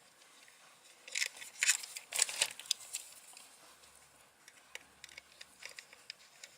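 Small screwdriver turning and loosening the screws of a screw-terminal connector: short scratchy scraping bursts about one to two and a half seconds in, then a few scattered light clicks.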